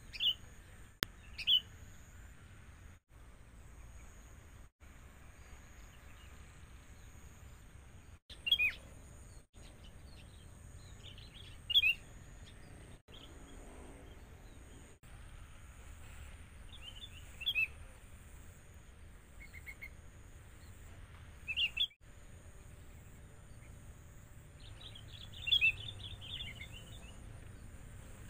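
Sooty-headed bulbul giving short, bright chirping calls in quick bursts, about seven times a few seconds apart, the liveliest burst near the end, over a steady low background rumble.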